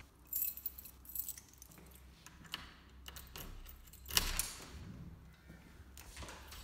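A bunch of keys jangling as a key goes into the lock of an aluminium-framed glass door and is turned, with a loud click about four seconds in.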